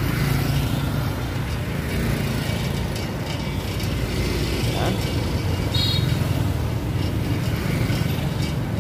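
Street traffic heard from an open pedal rickshaw: motor vehicles running past in a steady low rumble, with a brief high-pitched tone about six seconds in.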